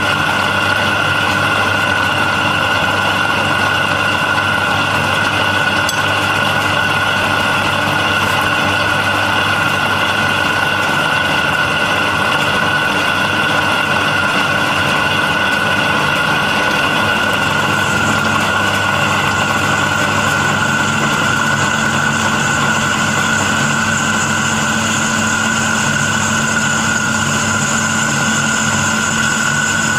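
Pillar drill press running, its bit drilling through a steel strip: a steady motor-and-gear whine over a low hum. About eighteen seconds in, a higher hiss joins it.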